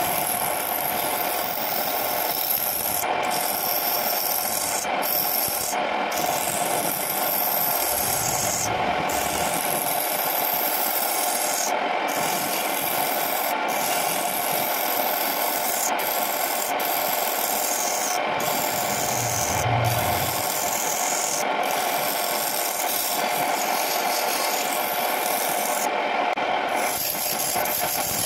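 Turning chisel cutting a spinning wooden mug body on a homemade wood lathe: a steady scraping hiss of the tool shaving the wood over the hum of the running machine.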